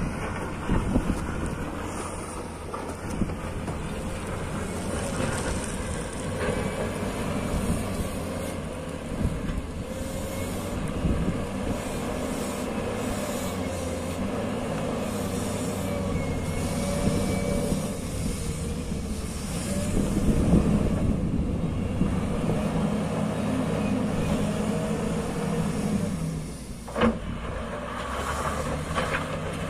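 Hyundai HL757-7A wheel loader's diesel engine running under load, its pitch rising and falling, as the loader comes down a dirt slope pushing loose rock with its lowered bucket. A single sharp knock sounds near the end.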